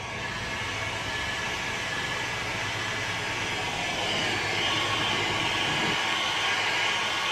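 Electric hot air gun blowing steadily while it warms a knife blade before heat treatment. The blowing grows louder and hissier about four seconds in.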